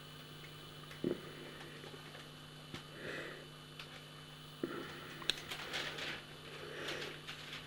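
Quiet indoor room tone with a steady low hum, broken by a few faint clicks and rustles of handling.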